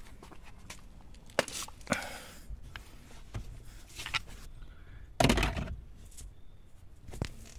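Handling noises: a few separate knocks and clicks of hard plastic and tools being moved about, with a louder rustling scrape about five seconds in.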